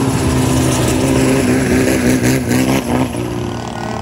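Longtail racing boat's engine revving, its pitch wavering up and down, then settling to a steadier, slightly lower note about three seconds in.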